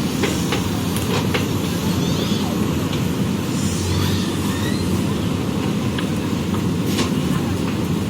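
Diesel engine of a backhoe loader running steadily under work, with a few sharp knocks.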